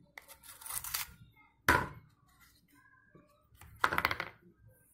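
A knife scraping on a plastic bead mould, then a single sharp knock. Near the end comes a quick run of knocks as the moulded piece of clay is knocked out of the mould onto a wooden table.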